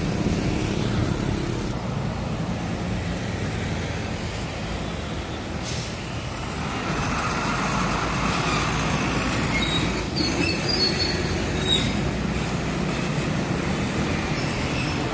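Heavy diesel trucks (fuel tankers and a container truck) running past on a road: steady engine rumble and tyre noise, with a few short high-pitched squeals about ten to twelve seconds in.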